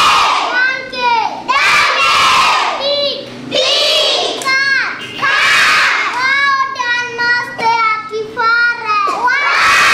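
A class of young children chanting aloud together in a string of loud, high-pitched shouts with short breaks between them, reciting the chalked words in chorus as each is pointed to.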